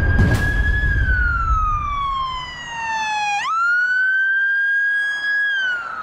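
Police siren wailing: a single pitch slides slowly down, sweeps back up about three and a half seconds in, holds, then starts to fall again near the end. Low street rumble under it fades out within the first second.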